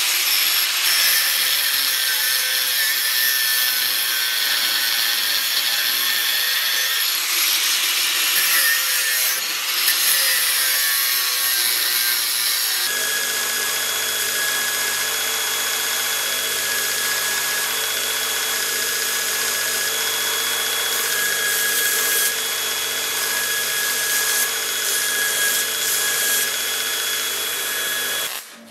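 A handheld power tool grinding the steel pommel block clamped in a vise, a loud scraping hiss. About 13 s in this gives way to a belt grinder running, a steady motor hum under the hiss of the pommel being ground on the belt, which stops just before the end.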